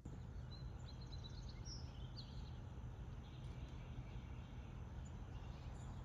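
Outdoor ambience: a steady low background noise with scattered small bird chirps, several in the first couple of seconds and fainter ones later.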